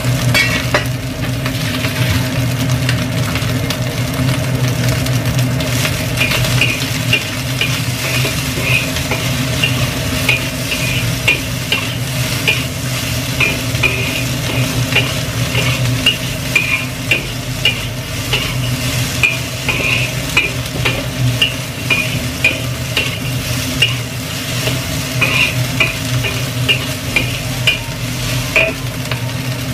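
Fried rice sizzling in a wok as a spatula stirs and scrapes it. From about six seconds in, the spatula scrapes or clinks against the wok about twice a second, over a steady low hum.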